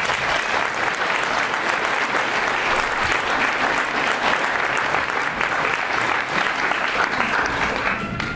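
Audience applauding, many hands clapping together in a dense, steady patter that drops away suddenly near the end.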